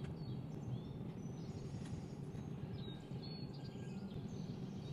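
Steady low background noise with a few faint, short bird chirps.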